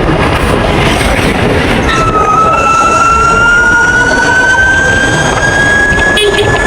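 Ather 450X electric scooter riding, its motor whine dropping in pitch about two seconds in and then rising slowly as it picks up speed, over a loud steady rushing noise.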